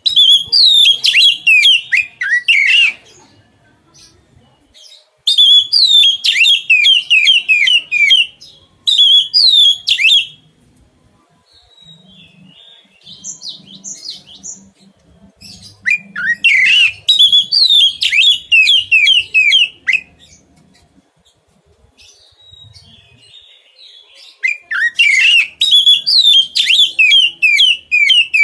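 A songbird singing in five loud phrases of one to four seconds each. Each phrase is a quick run of repeated notes that slide downward, with short pauses and a few softer calls between the phrases.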